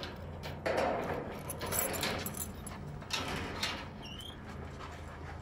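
A bunch of keys jangling as a lock on metal double doors is worked, with a few short metallic rattles as the doors come open.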